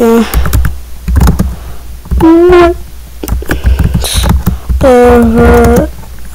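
Wordless voice making a few short held notes: one slightly rising about two seconds in, and a longer one, about a second, near the five-second mark. Low thumps and light taps come between the notes.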